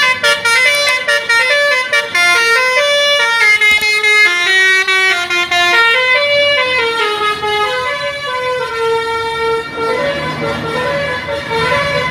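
A tour bus's 'basuri' telolet horn, a multi-tone air horn, playing a melody of stepped notes. The notes come quickly at first and then turn into longer, held notes.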